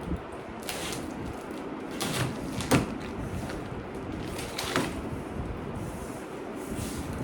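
Cardboard shipping box being handled and opened: a few short scrapes and rustles with a sharp knock a little under three seconds in and another near five seconds.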